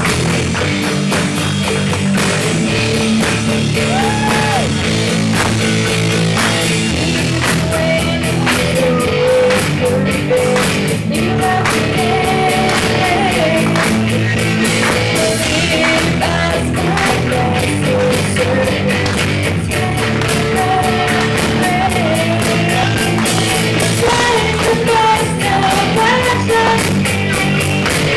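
Live church worship band playing an upbeat rock-style song: a lead vocal sings a melody over guitar and a steady drum beat.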